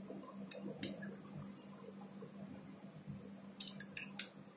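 A few light clinks of kitchen utensils as powdered sugar is added to roasted poha in a metal kadhai: two about half a second in, then three quick ones near the end, over a faint steady hum.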